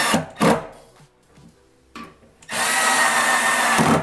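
Milwaukee M12 cordless drill/driver running at a closet rod bracket's screw holes. It gives short bursts at first, then a steady run with a motor whine for about a second and a half near the end.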